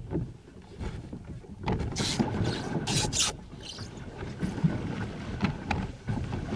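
Irregular rustling and knocks aboard a small boat, with wind buffeting the microphone in gusts, strongest around two and three seconds in.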